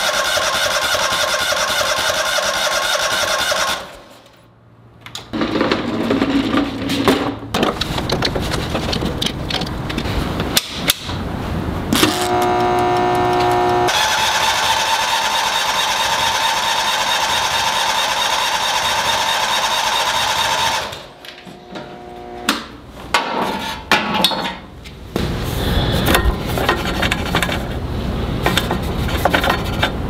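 Toro Wheel Horse 522xi's Kohler V-twin turning over on its electric starter in two long cranking attempts, without catching: the tractor won't start. Irregular knocks and handling noise come between and after the attempts.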